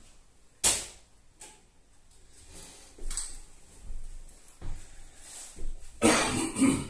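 Close handling noises on a wooden floor: a sharp click about a second in, a few lighter taps and knocks, then a louder stretch of shuffling and rubbing near the end.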